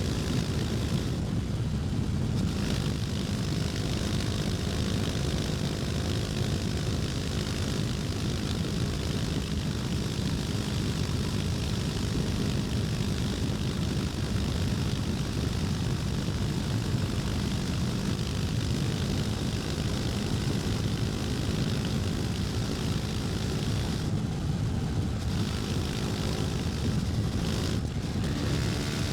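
KTM 250 Duke's single-cylinder engine running steadily under way at an even cruising speed, with no revving up or down.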